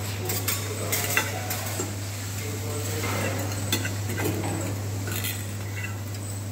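Metal spatula scraping and tapping on a flat steel griddle as a thin layer of egg is spread and worked, in scattered clicks and scrapes over a steady low hum.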